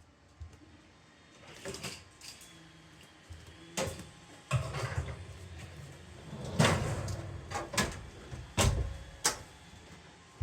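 Household handling noises: a series of sharp knocks and clicks with rustling in between, the loudest about two-thirds of the way through.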